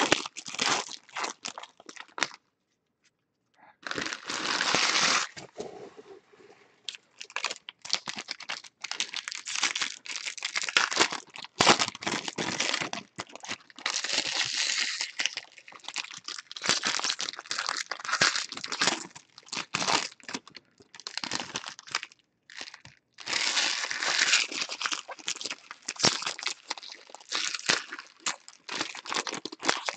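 Plastic baseball card pack wrappers being torn open and crinkled by hand in irregular bursts, with short pauses between.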